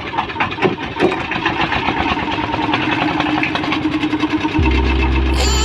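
An engine running, with a loud steady low hum starting abruptly about four and a half seconds in.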